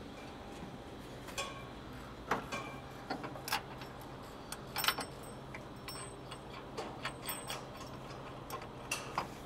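Irregular light metallic clicks and clinks of steel washers and a flange nut being fitted by hand onto a half-inch bolt through a skid plate bracket on a truck frame, some clinks ringing briefly.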